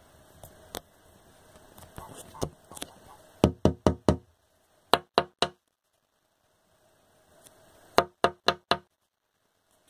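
Sharp knocks in quick bursts, about four a second: five knocks about three and a half seconds in, three more a second later, and five again near the end.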